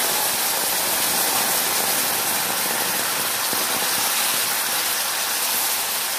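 Wet mashed tomatoes sizzling and crackling in hot mustard oil in a steel pan while being stirred with a wooden spatula: a dense, steady hiss.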